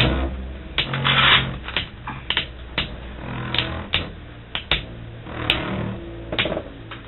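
Two metal-wheeled Beyblade spinning tops battling in a plastic stadium, clashing in irregular sharp clicks and knocks, with a longer scraping grind about a second in.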